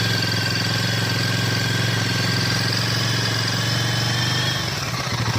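Royal Enfield Himalayan 450's single-cylinder engine revving steadily at about 3,000 rpm, held on the throttle, then easing off near the end.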